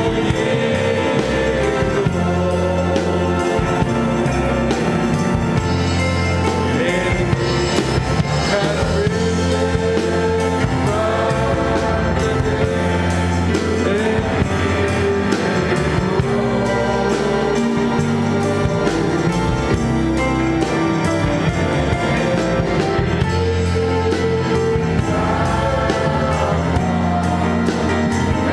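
Gospel worship music: a group of voices singing together over a band, with a steady bass line and a regular beat.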